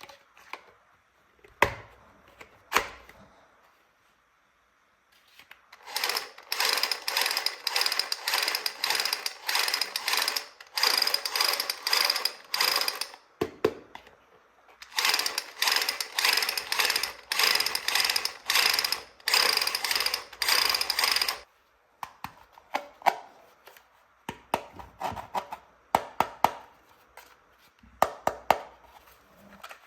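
Toy automatic rifle's mechanism rattling rapidly in two long bursts of about seven and six seconds, after a couple of sharp plastic clicks; lighter scattered clicks follow near the end.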